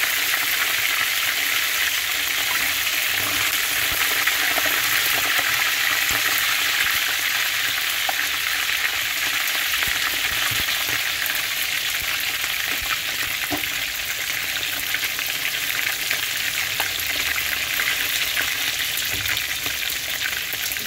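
Whole snapper, fried golden brown, sizzling and crackling steadily in hot oil in a frying pan.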